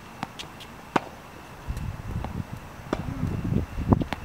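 Tennis ball struck by a racket and bouncing on a hard court: about four sharp pops, the loudest about a second in, with lower scuffing noise from shoes moving on the court in the second half.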